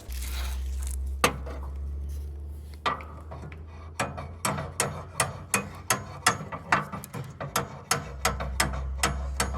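Ratchet wrench clicking as a bolt is turned, about three clicks a second, over an on-and-off low rumble.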